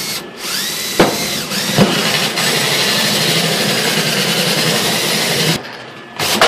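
Cordless drill running a 2-inch hole saw through the galvanized sheet metal of a furnace duct: a loud, steady cutting sound of the teeth biting into the metal, the drill's pitch wavering in the first two seconds, with two sharp knocks about one and two seconds in. The cutting stops suddenly about five and a half seconds in, followed by a quieter sound and one more knock near the end.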